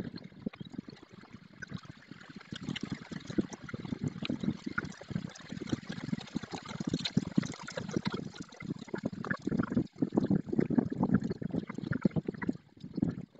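Wind buffeting the nest-camera microphone ahead of a storm, played sixteen times fast, so it comes out as a rapid, choppy gurgling jumble with constant crackles.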